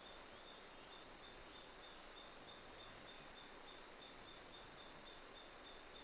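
Faint forest ambience: a steady hiss with a thin, high, evenly repeating chirp, several pulses a second.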